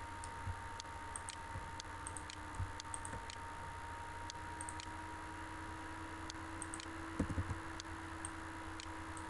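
Faint computer mouse clicks, irregular and a second or so apart, over a steady low hum and hiss, with a few soft knocks about seven seconds in.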